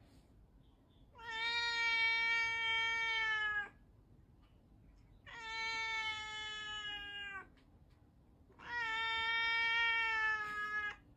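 Ginger cat giving three long, drawn-out meows, each about two seconds long at a steady pitch that drops slightly at the end, with short pauses between them.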